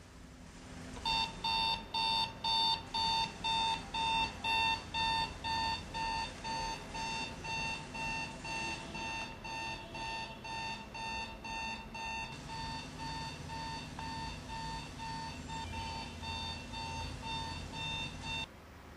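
Digital alarm clock beeping, about two short beeps a second. It starts about a second in and cuts off suddenly near the end, as the alarm is switched off.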